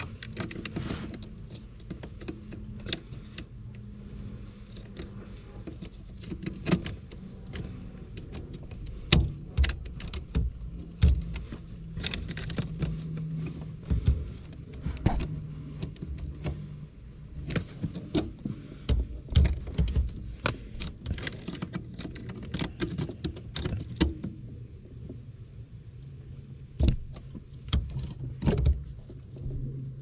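Hands fitting a replacement brake light switch into the brake pedal bracket under a car's dashboard: irregular plastic and metal clicks, taps and knocks. A steady low hum runs underneath.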